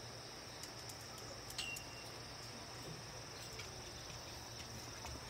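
Crickets chirring faintly and steadily in the background, with a few soft clicks and one brief high squeak about one and a half seconds in.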